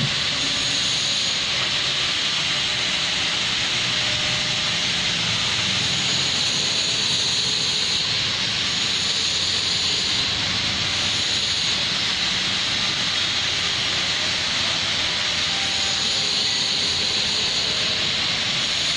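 Steady, even hiss with a faint low hum underneath, unchanging throughout.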